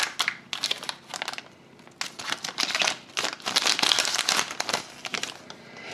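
Hockey card pack wrapper crinkling as it is opened by hand, in two crackly stretches with a short lull about a second and a half in.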